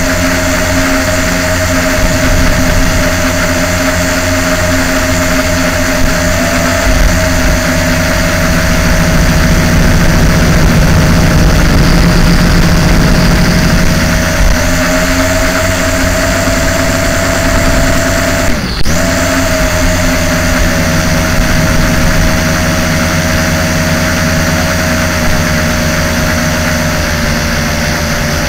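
LaTrax Alias quadcopter's four motors and propellers whining steadily, heard through its onboard camera. The pitch steps up slightly a few times. About 19 seconds in it dips sharply for a moment and comes straight back.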